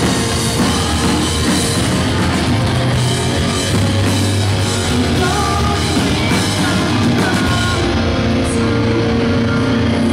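A melodic post-hardcore band playing live and loud: a woman's sung vocals over bass, guitars and a full drum kit. The cymbals drop away near the end.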